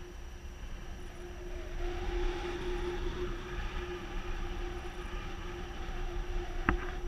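Wind buffeting the camera microphone in free flight under a tandem paraglider: a steady rushing rumble with a constant low hum under it, and one sharp click near the end.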